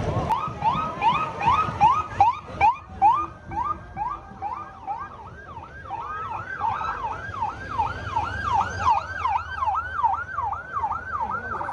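Electronic sirens of a motorcade escort in rapid yelp mode, each sweep rising and falling two to three times a second; from about six seconds in a second siren overlaps the first. The sound cuts off suddenly at the end.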